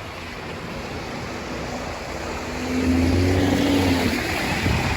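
Steady rush of a rain-swollen creek in full flow. About halfway through, a louder low motor hum swells for roughly a second and a half, then fades.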